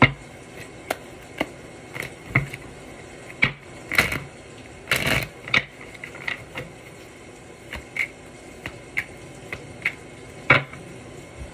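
Tarot cards being handled: irregular sharp snaps and taps of cards, with a brief rustle of cards sliding about four to five seconds in.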